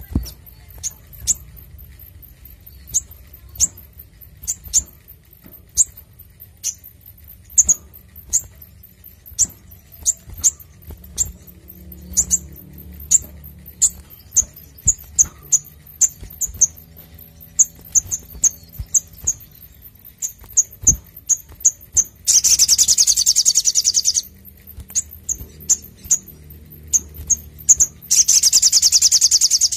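Male olive-backed sunbird singing a run of sharp, high chirps, about one a second at first and then quicker. Twice the chirps are broken by a dense, rapid trill about two seconds long, the second near the end.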